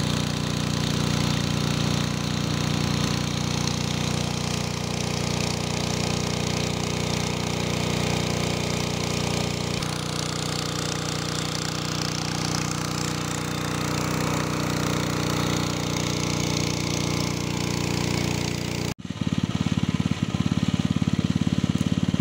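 Engine-driven water pump running steadily as it drains a pond through a hose. The sound breaks off for an instant near the end and comes back with a coarser, faster beat.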